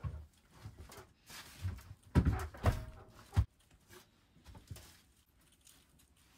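A few knocks and clunks in a small enclosed space, bunched together about two to three and a half seconds in, with a brief squeak among them.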